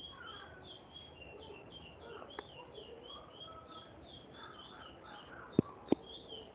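Young male curió (chestnut-bellied seed finch) chirping quietly in its cage: a quick run of short high chirps, about three a second, with a few soft gliding whistles. Two sharp knocks about a second before the end.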